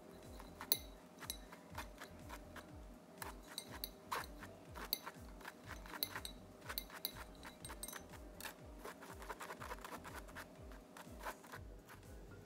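Wire whisk stirring flour through a metal mesh sieve, making many irregular light clinks and scrapes of metal on metal.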